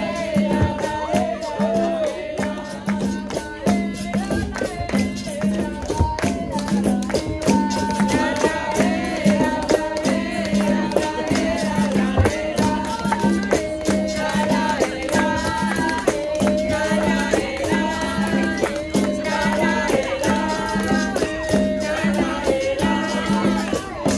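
Capoeira roda music: a steady rhythm on berimbau, rattle and pandeiro frame drum, with singing over it.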